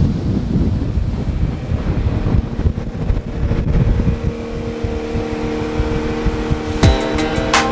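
Wind buffeting the microphone as a low rumble. About halfway through, steady held tones of background music fade in, and near the end sharp struck notes begin.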